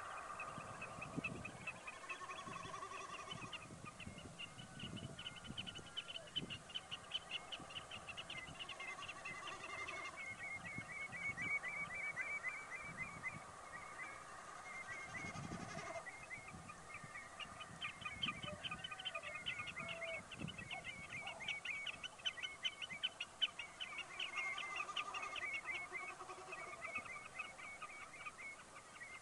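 Dawn chorus of wading birds, among them snipe, redshank, curlew, lapwing and oystercatcher, calling over one another on moorland, with long runs of quick repeated notes.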